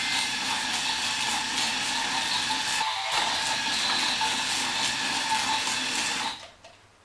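Small electric motor of a remote-control Barbie Video Game Hero roller-skating doll whirring steadily as it is driven, with a brief dip about three seconds in, then cutting off abruptly near the end.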